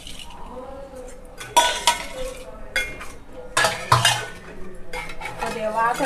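Metal spatula scraping and knocking against the side and bottom of a metal cooking pot while stirring crab curry, in several separate strokes.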